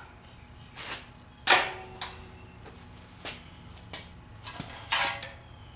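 Scattered light clicks and metal clinks of hand tools and small parts being handled during work on an engine's distributor drive. The sharpest comes about a second and a half in and rings briefly, and a quick run of clicks comes near the end.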